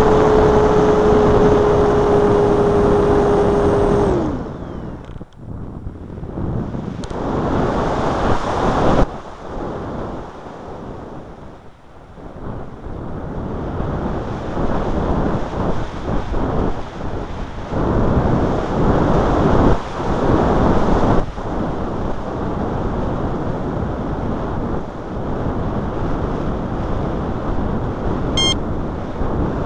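Electric motor of a Multiplex Blizzard RC model plane whining at one steady pitch, then cut about four seconds in, its pitch sliding down as it spins down. After that, rushing wind noise on the microphone, rising and falling.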